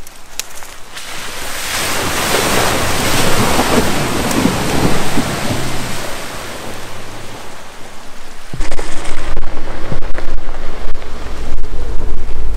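A Ford SUV drives past through mud on a dirt track. Its engine and tyres swell to a broad rush about three to five seconds in, then fade. About two thirds of the way through, wind buffeting the microphone sets in suddenly with a loud low rumble.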